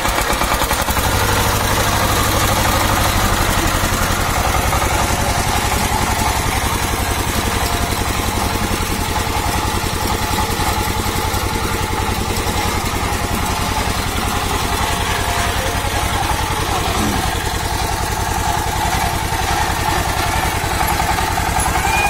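Single-cylinder stationary diesel engine running steadily with a fast, even firing beat, belt-driving a band sawmill before the cut.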